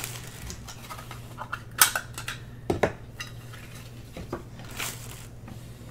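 Trading cards and plastic card holders being handled on a table: a few sharp clicks and rustles over a steady low hum.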